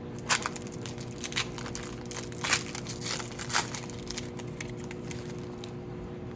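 Foil wrapper of a Pokémon Paradox Rift booster pack crinkling and tearing as it is opened by hand: a run of irregular sharp rustles, loudest about two and a half and three and a half seconds in, growing quieter near the end.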